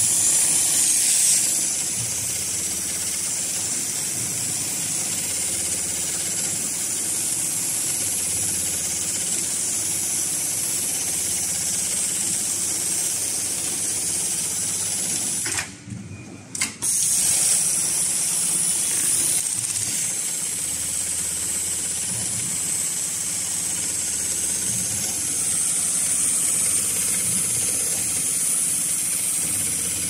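HighTex MLK500-2516 heavy-duty CNC sewing machine running steadily, stitching ratchet-strap webbing, with a constant high hiss over the machine noise. The sound cuts out for about a second midway.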